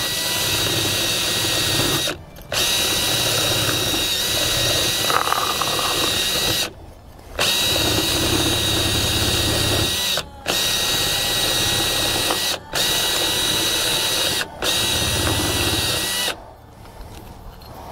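Cordless drill spinning a wire wheel brush against a painted red gumball machine part, scuffing the shine off so paint will adhere. The drill runs in about six bursts with short pauses between them, a steady motor whine under the scratching of the wire, and stops near the end.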